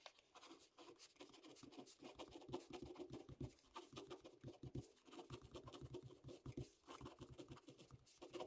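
Faint scratching of a pen writing on paper, in many short quick strokes starting about two seconds in.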